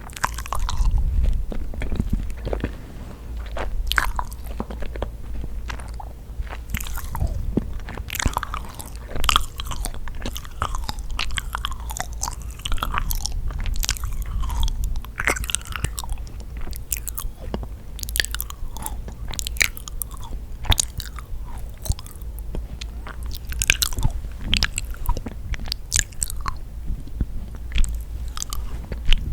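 Close-miked chewing and biting of yakgwa, the honey-soaked Korean fried cookie: dense, irregular sticky, wet mouth clicks and smacks with occasional crunchy bites.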